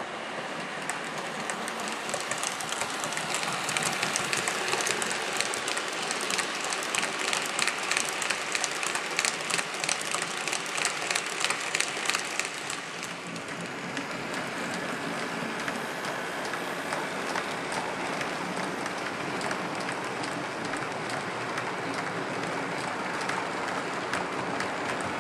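Model train rolling along the layout's track: a steady hiss of wheels and motor, with a run of sharp clicks as the wheels pass rail joints, loudest in the first half.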